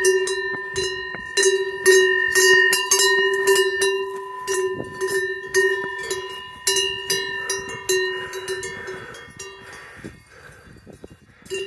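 A cowbell on a grazing cow's neck clanking irregularly, each clank leaving a ringing tone. The clanking is loud, then thins out and fades over the last few seconds before a loud clank again right at the end.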